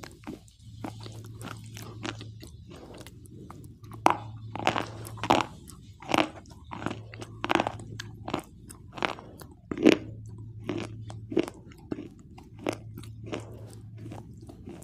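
Close-up crunching and chewing of a white, chalk-like mineral bar: many sharp, irregular crunches, the loudest and densest through the middle, with softer chewing at the start and end.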